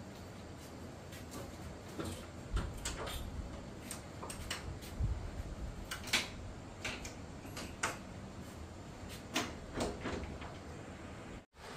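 Wooden plank door being pulled shut, with a run of scattered knocks and clicks from the boards.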